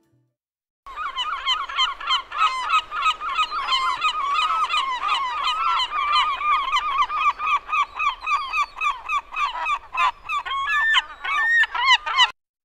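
A flock of seagulls calling, many rapid overlapping squawks. It starts about a second in and cuts off abruptly shortly before the end.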